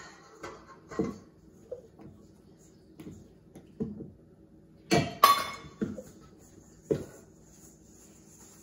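A wire whisk and a small metal cup knocking and clinking against a stainless steel mixing bowl while dough ingredients are mixed: about ten irregular strikes, the loudest about five seconds in, then they stop near the end.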